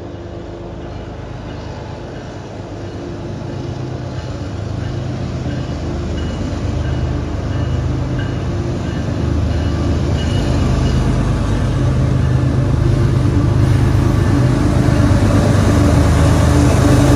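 Diesel locomotives of a CSX freight train approaching, their engine drone growing steadily louder.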